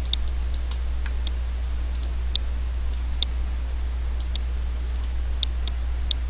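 Irregular sharp clicks of a computer mouse, about a dozen spread unevenly, over a steady low hum.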